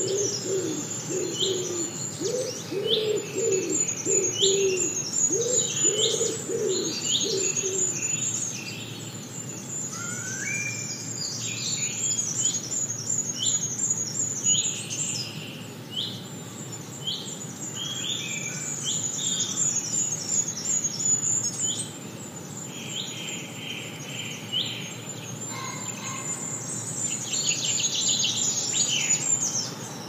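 Several wild birds singing and chirping: many short, high chirps and calls overlap throughout, with low repeated notes over about the first eight seconds.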